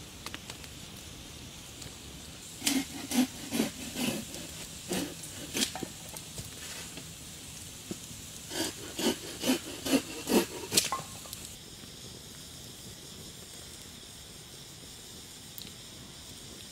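Hand saw cutting firewood, in two runs of back-and-forth strokes at about two a second with a pause between them. After the sawing stops there is a faint steady hiss.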